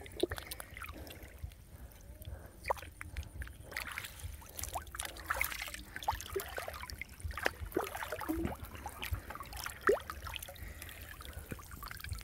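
Water sloshing and dripping around a person wading chest-deep through a canal while hauling in a gill net, with scattered small splashes and drips.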